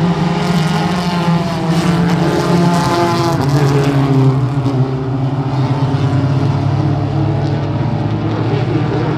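Several front-wheel-drive stock car engines running together as the pack races past on the oval. Their engine notes glide up and down as the cars go by.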